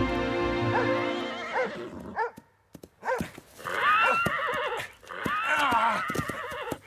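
Music fades out in the first second or so. A horse then whinnies repeatedly in long, shrill, wavering neighs as it rears and fights a rope around its neck.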